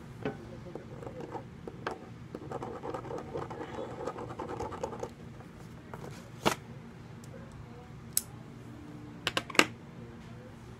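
A marker scratching and scribbling on paper for about three seconds, then several sharp taps and clicks of small objects on the tabletop, the loudest a quick double click near the end.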